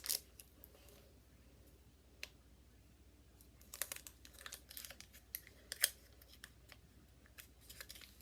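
Faint crinkling and small clicks of a foil Pokémon booster pack being handled and opened, in scattered short bursts with a quiet stretch early on.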